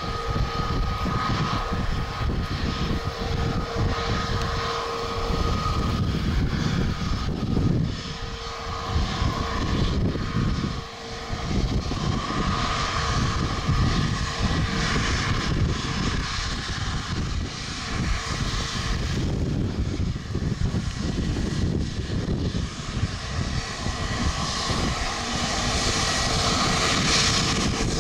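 Airbus A321neo's CFM LEAP-1A turbofans running at low taxi power as the airliner taxis past: a steady engine whine over a low, fluctuating rumble.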